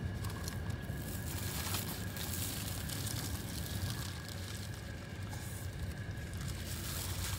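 Paper food wrapper and clear plastic gloves crinkling in short, scattered crackles as food is unwrapped and handled, over the steady low hum of the car.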